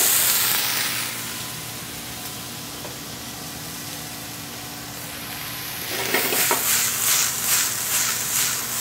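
Vegetables sizzling and steaming in a hot frying pan after a splash of water. The hiss is loud at first and dies down within the first second or so to a quieter, steady sizzle. About six seconds in, the pan is tossed on the gas burner and the sizzling comes back louder in uneven pulses.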